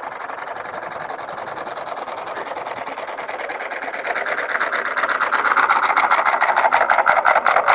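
Small engine of a motorized bicycle running with a rapid, even popping beat, growing louder from about halfway through as the bike comes close.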